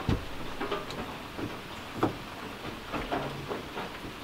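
Knocks and rattles of a paper towel roll being fitted by hand into a wooden wall-mounted holder: a sharp knock at the start, another about two seconds in, and a few lighter ones after, over a steady hiss.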